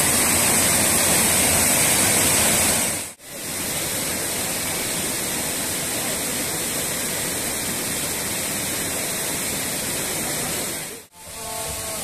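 Rushing water of a rocky river's rapids and small cascades, a steady loud wash. It cuts out briefly twice, about three seconds in and again near the end, and comes back a little quieter after each break.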